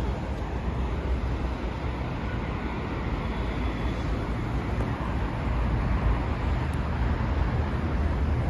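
Street traffic: a steady rumble of passing cars, growing a little louder about six seconds in.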